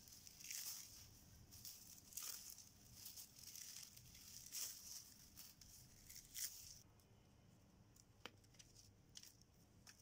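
Faint, irregular scratching strokes, about one or two a second, that stop about seven seconds in, followed by a few light clicks.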